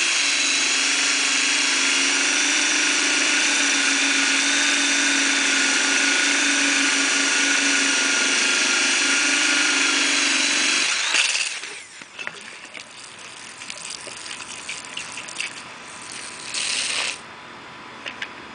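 Drill spinning a diamond core bit down through a paver, a steady whine with a gritty hiss, which stops abruptly about eleven seconds in. After that come a few light clicks and knocks and a short burst of noise near the end.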